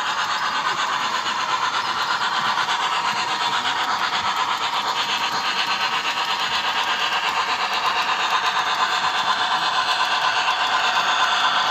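Model freight train running along the layout track: a steady running noise with a rapid, even clicking of wheels over the rail joints.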